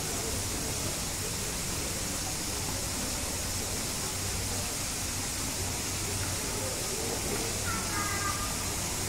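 Steady background hiss with a low hum, and faint distant voices murmuring underneath. A brief high whistle-like tone sounds about eight seconds in.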